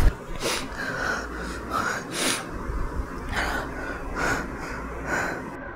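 A man breathing hard and gasping in fear, a breath or gasp roughly every second.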